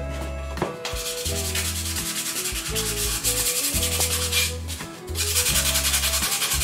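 Sandpaper rubbed by hand over a turned cedrinho-wood dish: quick back-and-forth rasping strokes, in two spells with a short pause about four and a half seconds in. Background music plays underneath.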